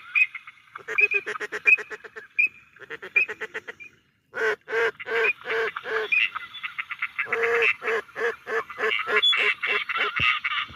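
A flock of migrating waterfowl calling in flight: rapid, repeated calls from many birds in several bursts, with a short break about four seconds in.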